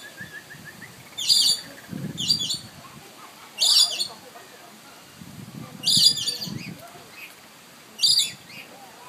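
Blue-streaked lory calls: five short, high-pitched screeches at uneven intervals of one to two seconds.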